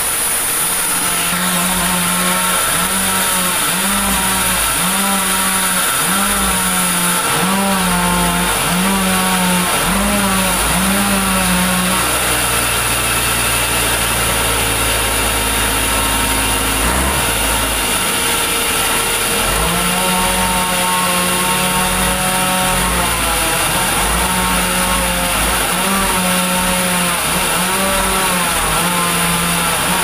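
Band sawmill running as a large meranti log is fed through the blade. The machine's hum sags in pitch about once a second as the cut loads it, steadies for several seconds in the middle, then resumes its sagging pattern.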